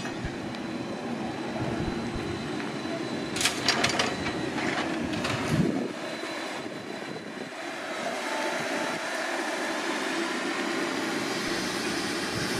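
Neoplan AN440LF-ETB electric trolleybus driving past and pulling away, a steady rolling and running noise. A few sharp clacks come about three to five seconds in, and a faint rising whine about two-thirds of the way through.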